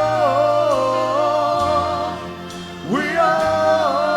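Live reggae band playing, the lead singer holding long drawn-out notes that step up and down in pitch as the song opens. A new sung phrase swells in about three seconds in.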